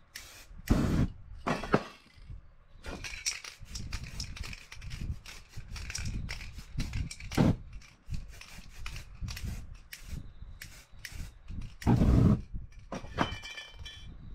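Spray-painting work sounds: short hisses of an aerosol spray can and a flame flaring on the wet paint, among knocks and handling noise, with heavier thumps about a second in and near the end.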